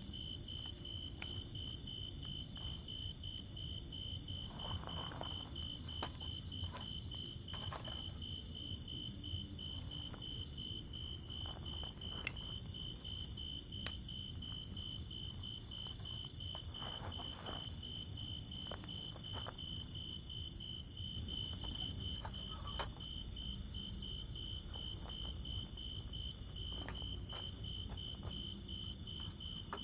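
Insects chirping in a steady, even pulse of about three chirps a second, with higher insect trills layered above, over a low rumbling background and a few faint scattered taps.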